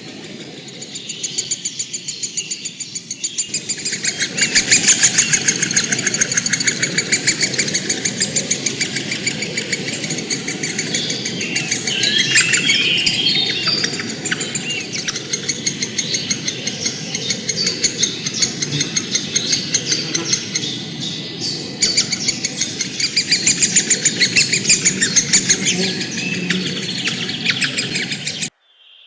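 A flock of birds chirping and chattering together in a dense, rapid run of repeated calls, which cuts off suddenly near the end.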